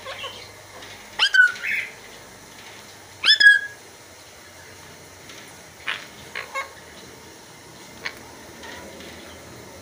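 A green parrot squawking: two loud, sharp calls about two seconds apart, then a few fainter short calls.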